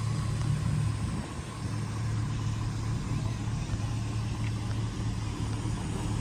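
The Firebird's 5.7-litre LS1 V8, fitted with shorty headers, idling steadily with an even low drone.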